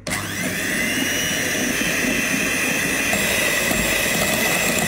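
Electric hand mixer starting up with a short rising whine, then running steadily as its beaters churn a crumbly mix of sugar, almond flour and margarine in a glass bowl.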